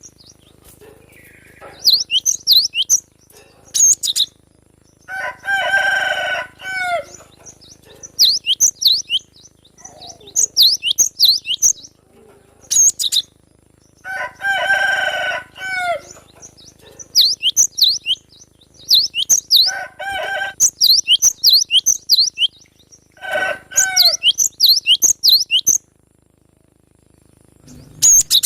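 Young wild cinereous tit (gelatik batu) singing: short phrases of quick, high, repeated down-slurred notes separated by brief pauses. Three times a longer, lower call with several layered tones cuts in, each lasting about a second and a half.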